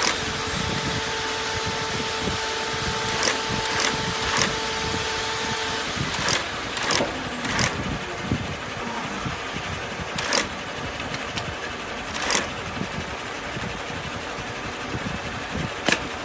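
Industrial sewing machine running as it stitches a thick-thread seam along the toe of a leather shoe upper, a steady mechanical din. A steady hum sounds for about the first six seconds and then stops, and a few sharp clicks come through later.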